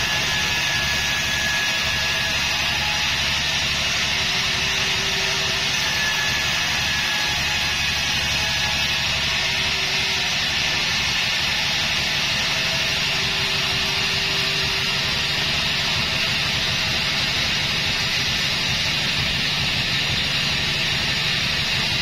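Band sawmill running, its vertical band blade sawing lengthwise through a log to cut off a board: a steady, loud machine drone with a constant hiss of sawing.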